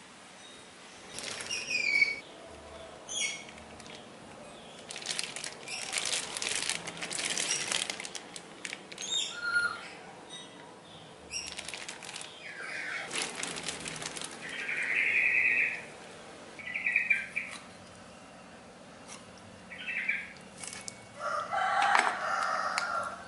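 Chickens moving about, with bouts of wing flapping and scattered short squawks and clucks.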